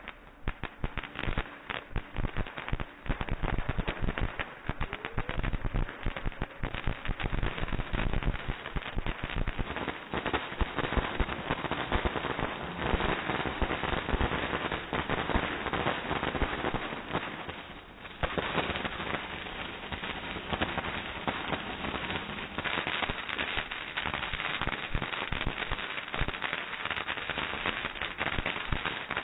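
Ground fireworks fountains spraying sparks, with a dense, continuous crackle of many small pops. The crackle eases briefly about two-thirds of the way through, then picks up again.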